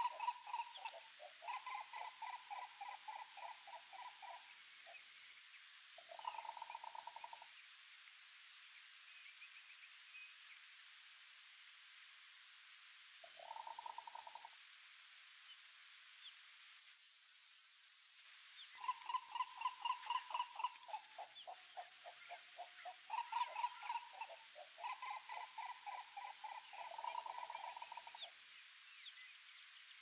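Green ibis calling in runs of rapid pulsed notes, several short bouts and then a long run in the second half, over a steady high-pitched chorus of crickets.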